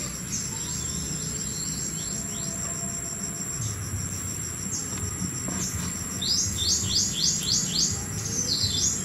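A steady high insect trill, with a bird giving faint falling chirps early on. About six seconds in the bird breaks into a quick run of about seven sharp falling chirps over two to three seconds.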